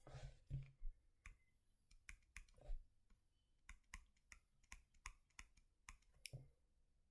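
Faint, irregular clicking, about three clicks a second, from computer input while a diagram is being written out.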